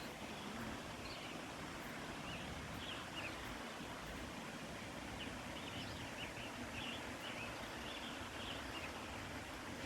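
Faint Louisiana waterthrush song: a run of short, slurred high notes, repeated through the second half, over a steady rushing background.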